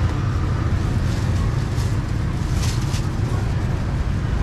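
Steady low rumble of street traffic, with a brief hiss about two and a half seconds in.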